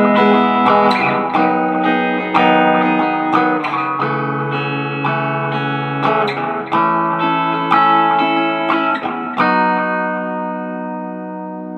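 Squier Bullet Telecaster electric guitar on its middle (neck-and-bridge) pickup position, played through a Roland Cube amp with reverb and delay. A run of picked chords ends in one chord, about nine and a half seconds in, that is left ringing and slowly fading.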